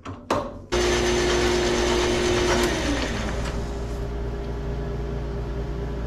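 A click, then a small metal lathe switches on less than a second in and runs steadily, its motor and gear train giving a steady whine whose pitch shifts slightly about three seconds in.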